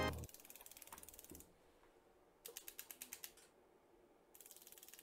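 Flip-dot display pixels flipping over under their electromagnets: a quick run of about eight sharp clicks in roughly a second near the middle, with fainter rapid clicking before and after.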